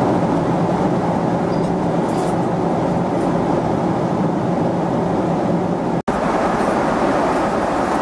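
Steady jet cabin noise aboard a Boeing 777-200: engine drone and airflow rush with a faint low hum, broken by a split-second gap about six seconds in.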